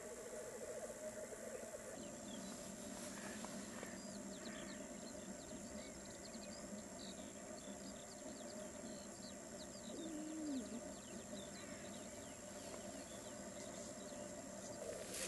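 Chorus of male black grouse at a spring lek, a continuous low bubbling coo, with one louder low gliding note about ten seconds in. Faint high chirps from other birds come and go over it.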